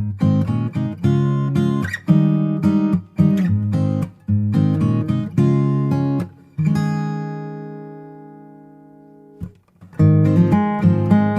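Acoustic guitar music: chords strummed in a quick rhythm, with one chord left ringing and fading for a few seconds past the middle before the strumming starts again.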